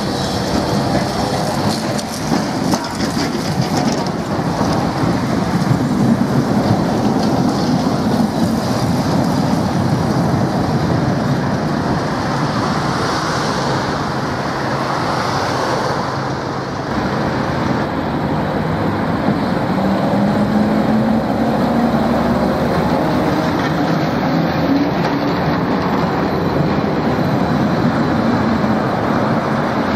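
Vintage freight tram, an old motor car hauling loaded open flat wagons, rolling along street tramway track: a steady running noise of wheels on rail and the moving train.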